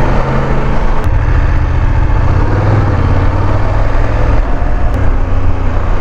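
BMW F 850 GS parallel-twin motorcycle engine running while riding and picking up speed, its note shifting about a second in and again near the end.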